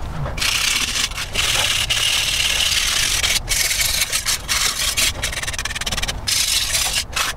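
Hand wire brush scrubbing loose surface rust off a steel bumper bracket, steady back-and-forth strokes with a few short breaks. It starts about half a second in.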